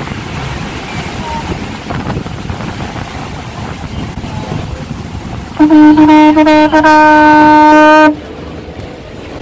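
Conch shell horn blown in one long, loud, steady note, starting about five and a half seconds in and cutting off sharply after about two and a half seconds. Before it, wind and the rush of the boat's wash.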